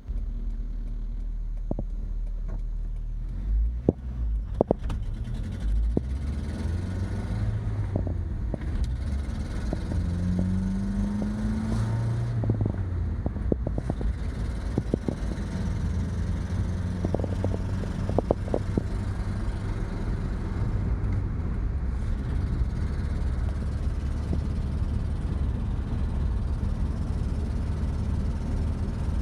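1986 Mazda B2000 pickup's four-cylinder engine running through a horrendously leaking exhaust while driving, its pitch rising and falling as it revs and goes through the gears. Scattered clicks and knocks come and go, mostly in the first twenty seconds.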